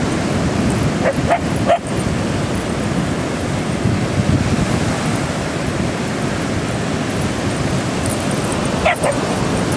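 Shetland sheepdog barking: a few short barks in the first two seconds and one more near the end, over a steady rushing noise of surf and wind on the microphone.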